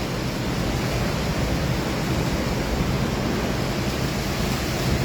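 Tornado-force wind blowing hard: a loud, steady rush of noise with no let-up.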